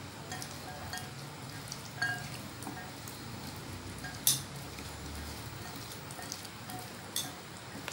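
Raw potato finger slices being tossed by hand in a wet gram-flour spice coating in a glass bowl: soft wet squishing and rustling, with a few sharp clicks of potato or fingers against the glass, the loudest about four seconds in.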